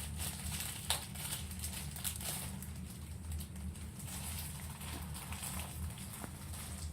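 Light rustling and handling of camera packaging, with a sharp tap about a second in, over a steady low hum.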